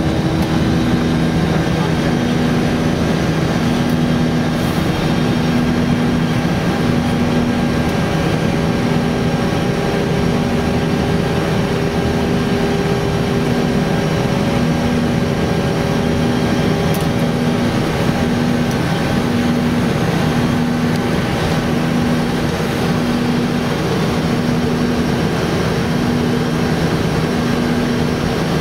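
Steady flight-deck noise of an Airbus A321 in the climb, engines at climb thrust: an even rush of airflow with a low hum and a few steady tones, one of them pulsing on and off about once a second.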